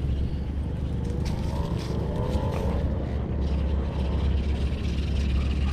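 Wind buffeting the microphone as a steady low rumble, with a few faint clicks.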